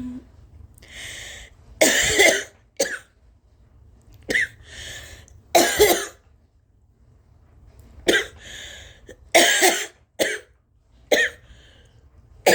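A woman coughing uncovered, not muffled by a hand, in short groups of one to three coughs, about ten in all, with an audible breath drawn in before each group. She is sick with a fever and what she takes for a flu or stomach bug.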